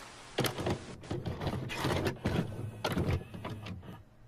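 VCR mechanism loading and threading a VHS cassette: a run of clicks and clunks over a low motor hum that dies away near the end.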